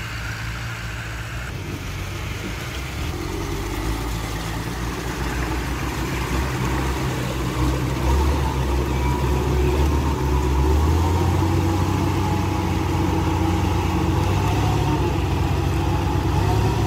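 Heavy diesel engine of earthmoving machinery running steadily, growing gradually louder and strongest from about eight seconds in.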